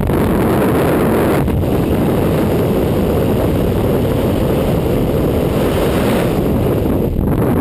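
Freefall airflow buffeting the camera's microphone: a loud, steady rush of wind noise.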